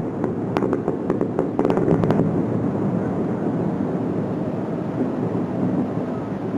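Aerial fireworks bursting: a continuous low rumble of booms, with a run of sharp crackles in about the first two seconds.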